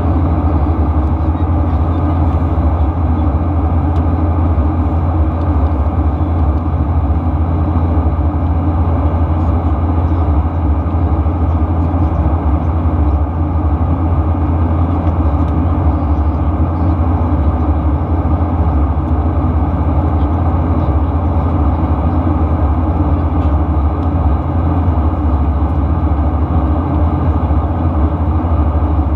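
Steady in-flight cabin noise of a Boeing 737-800 heard from a window seat beside the wing: its CFM56-7B engines and the rushing air make an even, deep hum that does not change.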